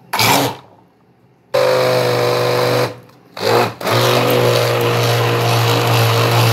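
Hand-held immersion blender running in a plastic beaker of mango, curd and milk: switched on and off in a few short runs, then held on steadily from about four seconds in.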